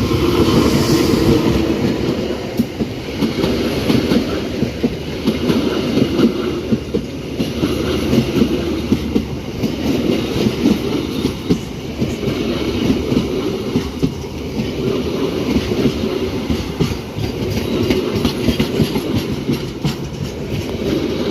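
A train passing close by for the whole stretch: a steady heavy rumble with its wheels clattering over the rail joints in many sharp clicks.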